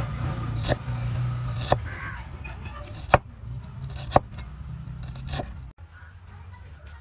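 Steel cleaver chopping ginger on a wooden cutting board: five sharp knocks about a second apart, over a steady low hum.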